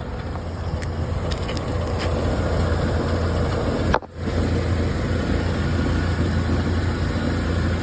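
Cammed small-block V8 of a 1984 Pontiac Grand Prix running, a steady low rumble that briefly drops out about four seconds in.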